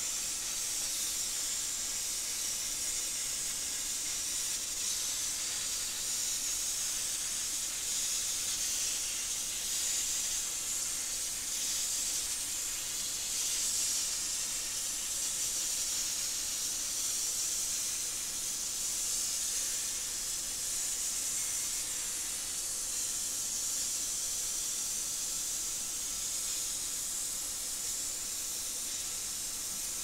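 Everlast Power Plasma 50S plasma torch on a CNC table cutting 22-gauge sheet steel: a steady high hiss of the cutting arc.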